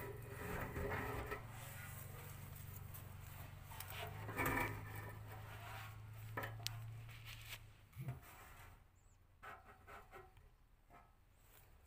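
A low, steady motor hum that cuts off about eight seconds in, with faint rubbing and clicks from a phone being handled.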